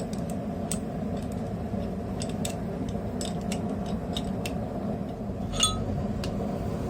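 Light metallic clinks and taps of steel being handled and set on an anvil hardy jig, with one sharper ringing clink about five and a half seconds in, over a steady low background rumble.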